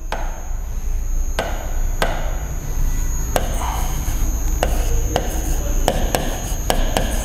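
Chalk writing on a blackboard: a series of sharp, irregularly spaced taps as strokes begin, with scratchy scraping between them. A steady low electrical hum runs underneath.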